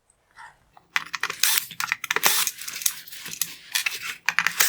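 Screwdriver backing out T15 Torx screws from a plastic headlight housing: after about a second of quiet, a quick run of small sharp clicks and rattles.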